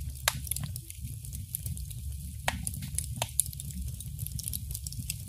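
Crackling fire sound effect: irregular sharp crackles and pops over a steady low rumble.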